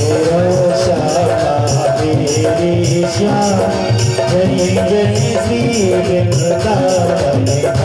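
Devotional kirtan music: a chant sung over a steady dholak beat, with jingling hand percussion keeping time.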